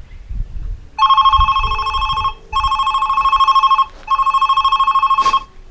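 A Pinephone ringing with an incoming call: three bursts of a warbling electronic ringtone, each a little over a second long with short gaps between them, a sign that the test call is getting through.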